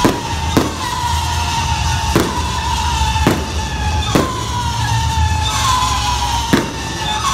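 Aerial firework shells bursting: about six sharp bangs at irregular intervals, over continuous music.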